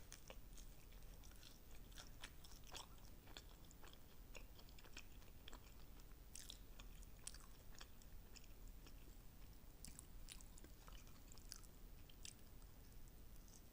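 Close-up chewing and biting of sauced fried chicken wings: soft, irregular crackles and sharp little mouth clicks with no steady rhythm.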